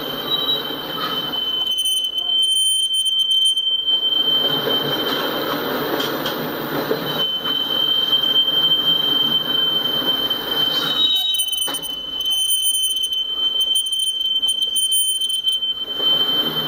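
Freight train of tank cars rolling past, its wheels giving a steady high-pitched squeal over the rumble of the cars. The squeal weakens for a few seconds in the middle, then comes back strongly.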